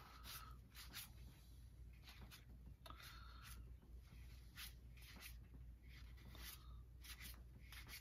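Faint, papery flicks of cardboard baseball cards being thumbed one by one through a stack in the hands, each card sliding off with a short crisp stroke about every half second to a second.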